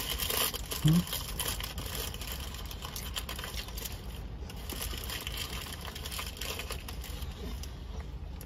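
Irregular crinkling and rustling of a paper or plastic food wrapper being handled, over the steady low rumble of a car. A short voice-like hum about a second in.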